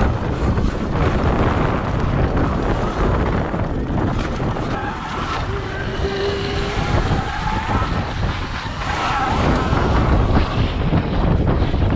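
Wind buffeting the camera microphone, with tyre and trail noise from an electric dirtbike riding along a rough dirt and gravel track. A brief rising whine sounds about halfway through.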